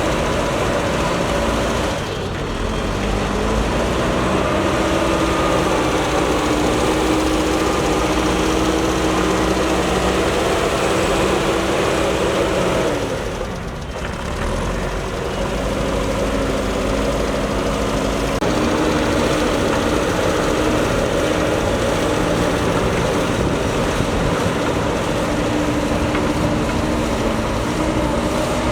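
Diesel engine of a JCB backhoe loader running steadily under work. Its note shifts up and down, dropping briefly about two seconds in and again around thirteen seconds in before picking back up.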